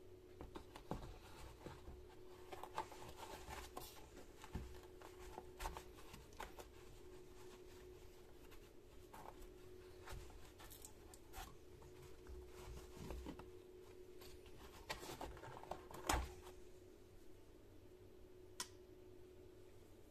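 Faint handling of insulated pliers in a fabric tool roll: scattered soft clicks and knocks as the tools are moved and tucked under straps, the loudest about 16 seconds in. A faint steady hum runs underneath.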